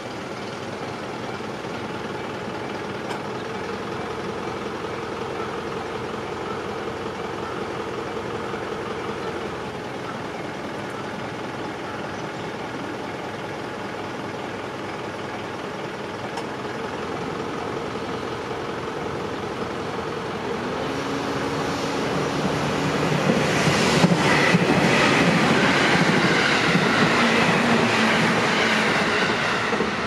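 Japanese railway level-crossing warning bell ringing steadily as a train approaches. About 21 s in, the train's running noise starts to rise, and it is loud from about 24 s on.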